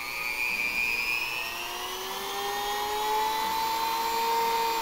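Trato electric rotary tool (micro retífica) running free with no bit, a steady motor whine that climbs in pitch over the first few seconds as the speed is turned up, then dips slightly near the end.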